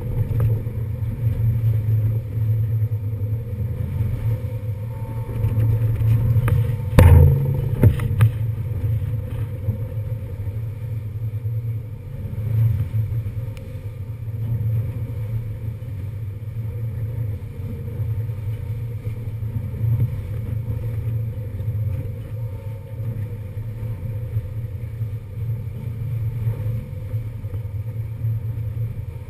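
Ferry engines running with a steady low drone, mixed with wind buffeting the camera microphone on the open deck. A couple of sharp knocks come about seven seconds in, the loudest moment.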